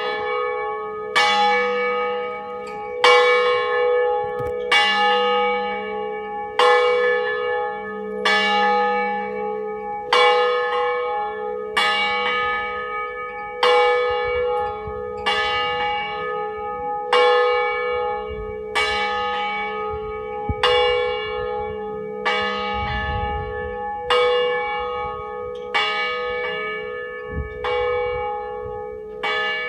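A single church bell swung full circle in the Ambrosian system, ringing a distesa as the noon bell. It gives one clear stroke about every two seconds, each ringing on and fading into the next.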